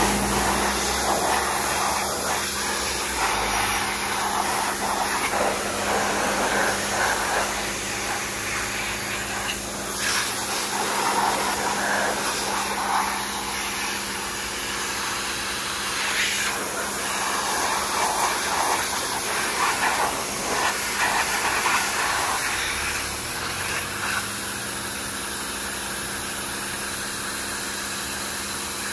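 WAP pressure washer running with a steady motor-and-pump hum, its high-pressure water jet hissing as it sprays a brush cutter's engine. The hiss swells and eases as the jet moves.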